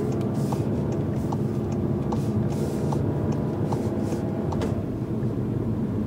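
2013 Volkswagen Golf GTI's 2.0-litre turbocharged four-cylinder engine running steadily at low speed, heard from inside the cabin, with the engine not yet fully warm. Faint regular ticks sound about once a second.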